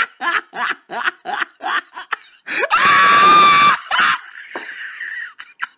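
A quick run of short laugh-like bursts, about four a second, breaks into a loud, high-pitched scream held for about a second, which trails off into a thinner wail.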